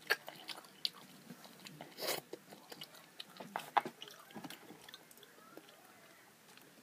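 A boy slurping in and chewing a mouthful of yakisoba noodles: a run of short, wet mouth clicks and smacks, busiest in the first four seconds and then thinning out.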